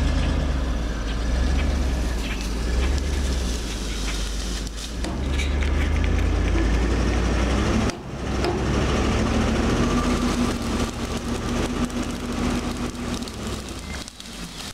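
Engine of a heavy vehicle or machine running under load with a steady low rumble, dipping sharply for a moment about 8 seconds in.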